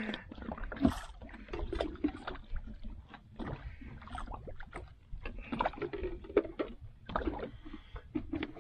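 Small outrigger fishing boat rocking on the water, with water lapping against the hull and irregular knocks and taps from the boat and gear.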